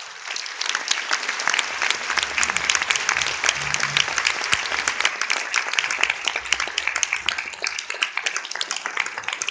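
Audience applauding with dense clapping that swells over the first two seconds and then holds steady.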